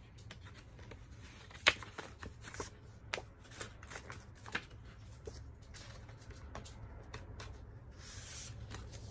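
Stiff cardboard album packaging and paper being handled: sleeves and card pieces tapping, sliding and rubbing, with scattered clicks, the sharpest about a second and a half in, and a short papery slide near the end.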